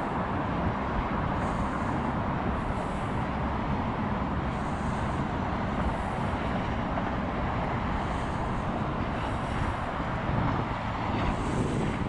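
Steady low outdoor background rumble with no clear call or tone in it, and faint high hissy patches every second or two.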